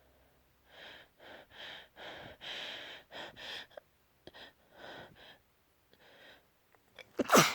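A person taking a string of short, uneven gasping breaths as a sneeze builds, then one loud sneeze near the end.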